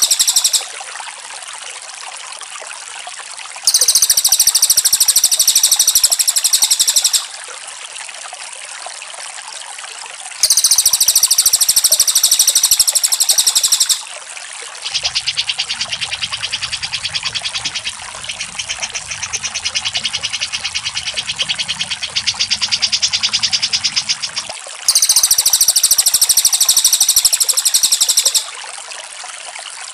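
Recorded songs of a cucak jenggot and a cililin played on a loop: loud bursts of rapid, high-pitched trilling, each about three and a half seconds long and about three seconds apart, over a steady hiss. About halfway through, a different, lower rapid trill with a low buzz beneath it runs for about ten seconds.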